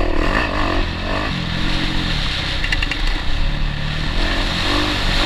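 Motocross bike's engine, heard from a camera mounted on the bike, revving up and down with the throttle as it is ridden over a rough dirt track.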